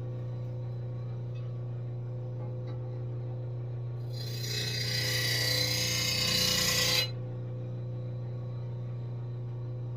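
Burr being taken off the back edge of a steel lawn mower blade with an abrasive: one continuous scrape about three seconds long, starting about four seconds in and stopping abruptly. It is done to lighten the heavy side so the blade balances.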